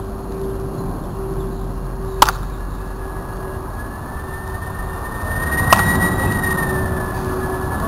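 Two sharp cracks of a wooden baseball bat hitting a ball, about three and a half seconds apart, over a steady engine-like hum with a high whine that rises and falls in the second half.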